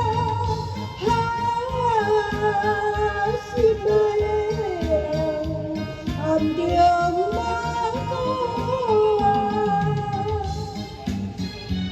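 Music: a woman singing a slow Taiwanese ballad over a backing track with guitar, her melody sliding and wavering between held notes.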